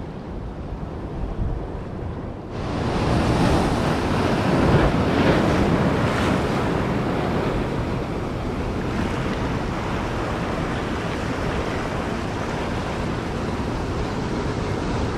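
Surf breaking and washing over the rocks of a jetty, a steady rushing that jumps louder about two and a half seconds in.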